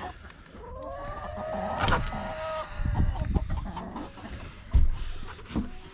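Chickens clucking, with one hen giving a long drawn-out call about a second in. Several dull thumps among the clucking, the loudest near the end.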